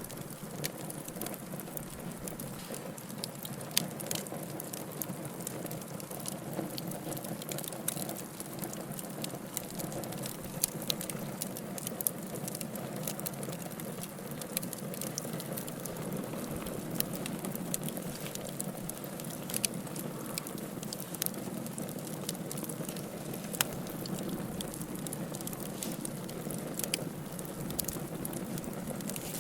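Wood fire burning in a fireplace, a steady low rush of flames with irregular sharp crackles and pops throughout.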